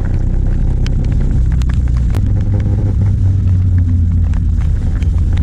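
Steady low vehicle rumble, with scattered light clicks over it.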